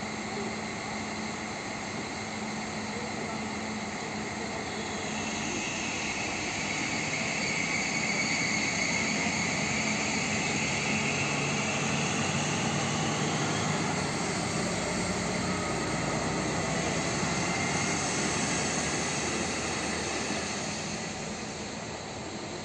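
SA135 diesel railcar, a Stadler Regio-Shuttle RS1, departing: its engine drone builds about five seconds in as it pulls away, with a whine over the low hum. The sound fades near the end as the railcar draws off.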